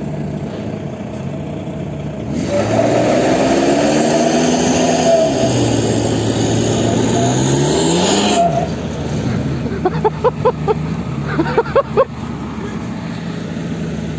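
Isuzu VehiCROSS V6 engine revving hard under load, its pitch rising and falling for about six seconds, while it spins its tyres in the snow pulling a semi truck on a tow strap. A steady low engine drone runs underneath. Later comes a quick series of short, sharp chirps.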